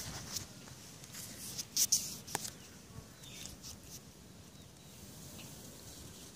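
Quiet garden ambience with a few short, sharp high clicks or chirps about two seconds in.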